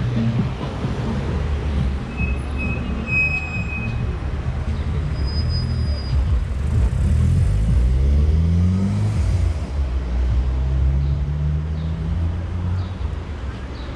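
Street traffic at close range: engines idling and running at an intersection, with one vehicle's engine rising in pitch as it pulls away a little past halfway.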